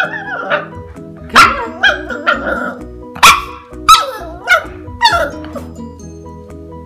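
Miniature schnauzer puppy barking: a quick string of about nine short, sharp barks, each falling in pitch, that stops a little after five seconds in.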